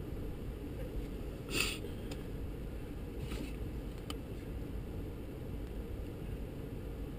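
Steady low rumble inside the cab of a stopped 4x4. A short hissing rustle comes about one and a half seconds in, a fainter one a couple of seconds later, then a faint click.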